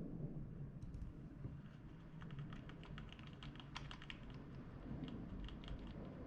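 Typing on a computer keyboard: a few key clicks, then a quick run of them from about two seconds in.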